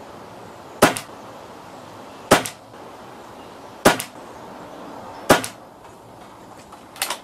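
Reximex Regime PCP air rifle, fitted with a Lane regulator, firing four shots about a second and a half apart. Each shot is a sharp crack followed at once by a fainter second click, and a quieter click comes near the end.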